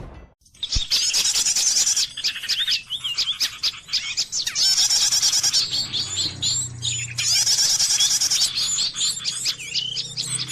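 Dense, rapid chirping and twittering of many small birds, loud and overlapping, starting about half a second in. It is most likely the call recording played as a bird-trapping lure.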